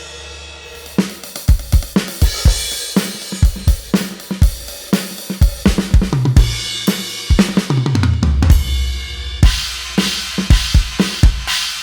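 Roland TD-316 electronic drum kit played through its V31 module's preset sounds: after a fading ring, a busy beat of kick, snare and tom hits starts about a second in, with tom fills and a crash cymbal wash near the end.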